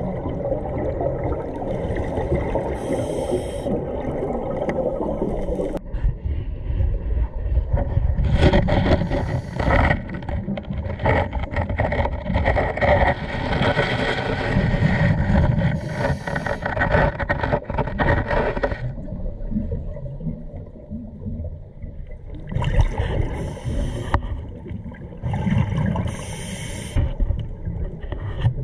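Underwater scuba recording: a steady low rumble of water moving around the camera, broken several times by short bubbling gushes of a diver's regulator exhaling.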